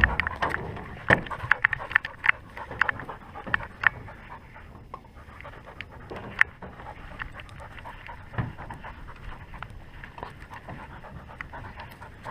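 A dog panting close to the microphone. There are sharp clicks and knocks of handling through the first few seconds.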